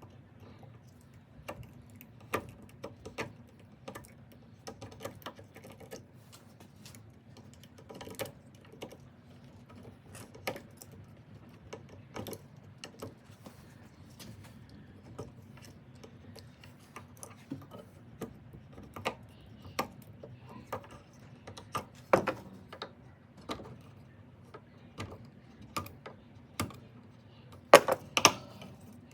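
Razor blade and ratchet handle being worked by hand as the soft rubber grip is cut away: irregular sharp clicks and taps, with a few louder knocks about two-thirds of the way through and near the end, over a steady low hum.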